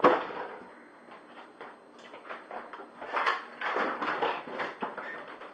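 Handling noise from a handheld camera being moved about: a sharp thump at the start, then a string of irregular knocks and rustles, busiest near the end.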